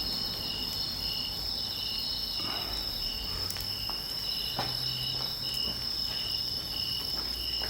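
Insects calling: a steady high-pitched trill with a shorter chirp repeating about twice a second, and a few faint crackles from the campfire.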